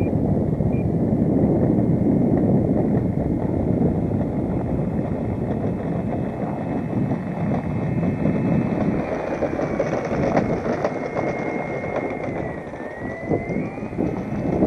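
Strong wind buffeting the microphone, with the faint whine of the FMS Beaver V2 model plane's electric motor overhead. The whine dips in pitch near the end and then rises again.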